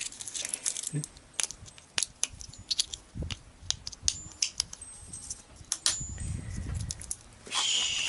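Small clicks and rattles of AA batteries being handled and snapped into a plastic battery holder, with a short scraping rustle near the end.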